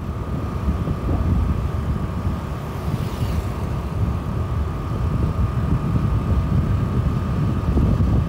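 Road noise from a moving vehicle: a loud, uneven low rumble, with a faint steady whine above it.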